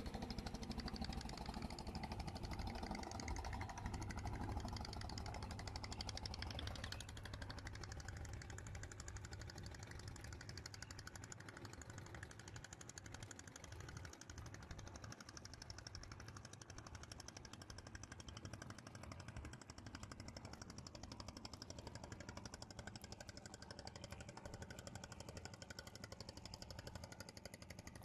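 A small engine running steadily with a rapid knocking beat, a little louder for the first seven seconds or so and then fainter.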